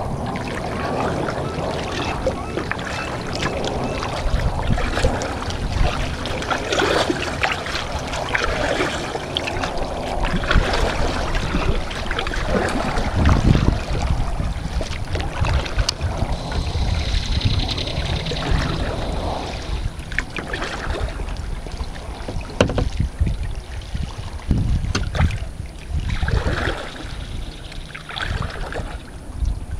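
Kayaks being paddled on calm water: paddle blades dipping and splashing and water washing along the hull in irregular strokes, over a low rumble of wind on the microphone.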